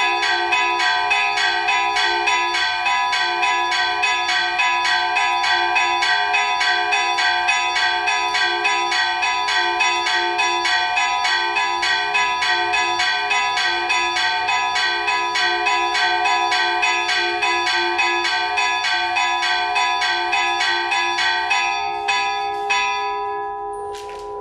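Two fixed bells, an F#4 bell and a G#4 bell, chimed by hand in a rapid, even festive pattern of about four to five strokes a second. Their clappers strike the bare bronze without leather pads. The chiming stops near the end after a few last strokes, and the bells ring on and fade.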